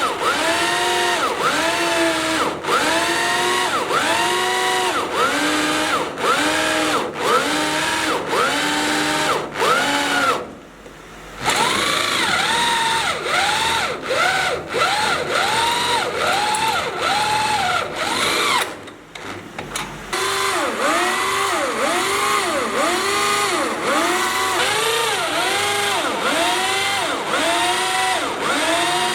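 Power drill boring into steel: a loud whine whose pitch rises and falls over and over, about twice a second, as the bit cuts. It drops away briefly about ten seconds in and again near nineteen seconds, then resumes.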